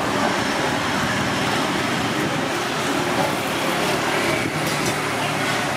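Steady street traffic noise: a continuous wash of passing vehicles.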